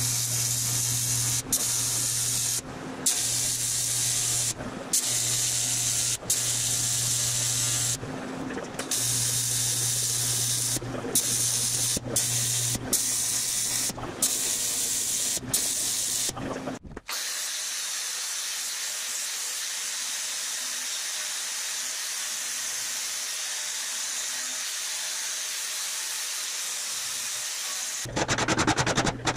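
AC TIG welder buzzing and hissing while it welds aluminium body panels, the arc stopping and restarting several times. From about 17 s there is a steady hiss with no buzz.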